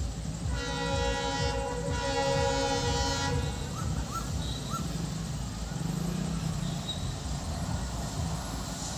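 Locomotive air horn sounding in the distance: one long blast of about three seconds, several notes at once, that dips briefly about a second and a half in, over a steady low rumble.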